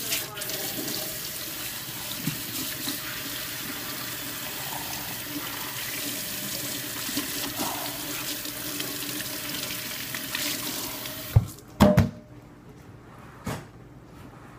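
Kitchen faucet running into a stainless steel sink as hands are washed under the stream. The water stops about eleven seconds in, followed by a few sharp knocks.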